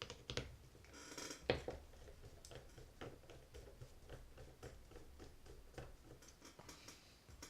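Small screwdriver turning a screw out of a Penn 260 Slammer spinning reel's side plate: a run of faint, irregular small clicks and light scraping, with low handling noise underneath.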